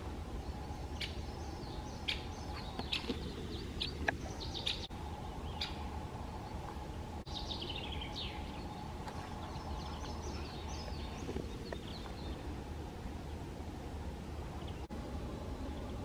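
Wild songbirds singing and calling: a scatter of short chirps in the first few seconds, then a quick run of notes falling in pitch about seven seconds in, and more rapid notes after. A steady low hum runs underneath.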